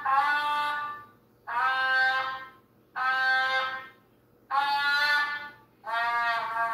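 A beginner student's trumpet playing a slow line of single held notes, each about a second long with short breaks between them. The sound comes over a video call.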